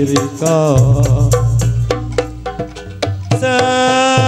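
Campursari music with a singer: the voice slides between notes and then holds a long, wavering note near the end, over regular hand-drum strokes and a steady bass line.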